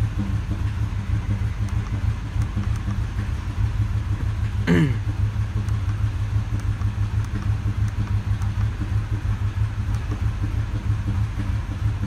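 Ford 6.2L SOHC V8 running with a rough, uneven low pulsing from a multiple-cylinder misfire on both banks, which a broken exhaust valve spring turns out to cause.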